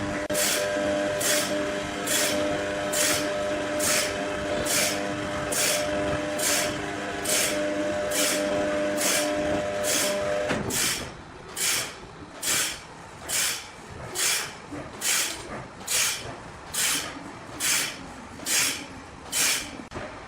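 Sawmill machinery cutting wood with a regular hissing stroke a little more than once a second. A steady machine hum underneath cuts out about halfway through while the strokes go on.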